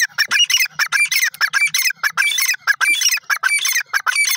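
Grey francolin calling: a loud, fast run of short repeated notes, about six a second, without a break.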